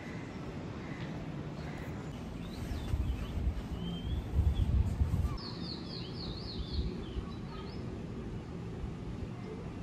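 Birds chirping over a steady outdoor hum, with a quick run of about six high chirps just past the middle. A low rumble swells for a few seconds before that and is the loudest sound.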